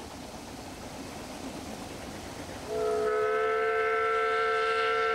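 Whistle of a Ffestiniog Railway narrow-gauge steam locomotive: one long blast of about three seconds, several tones sounding together, starting a little past halfway in over faint steady background noise.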